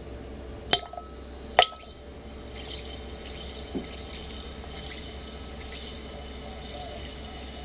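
Two small objects drop into a glass tumbler of water, about a second apart, each with a sharp clink that rings briefly. Then the water fizzes steadily with faint crackling as it turns cloudy.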